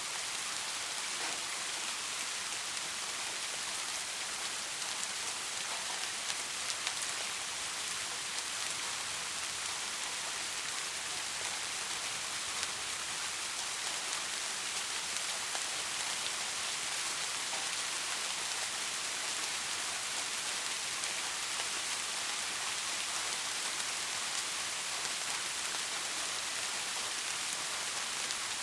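Steady rain falling on hard surfaces, a constant hiss with scattered drop ticks.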